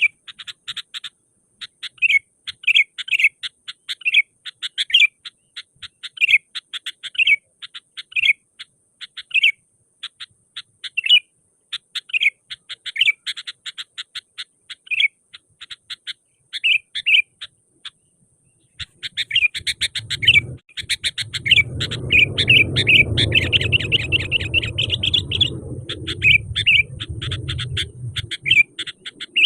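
Sooty-headed bulbul (kutilang) singing in short, quick chirping phrases about once a second, with a brief pause about two-thirds of the way through. After the pause a low steady rumble runs under the calls for most of the rest.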